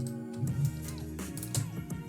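Instrumental background music with sustained bass notes and sharp percussive hits.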